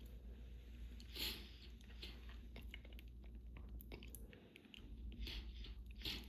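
Close-up sniffling and nose-rubbing from an allergy-irritated nose: irregular short, wet snuffs and rubbing noises, the loudest about a second in and two more near the end, over a low steady fan hum.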